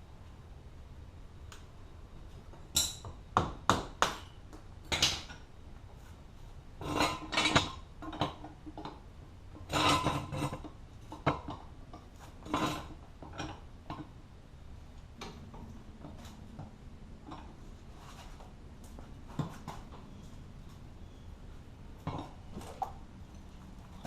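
Metal hand tools clinking and tapping on the front wheel hub of a Polaris RZR Turbo XP as the cotter pin is knocked out and the 27 mm axle nut is taken off. Irregular sharp metal clinks and clatters, busy through the first half, then sparser.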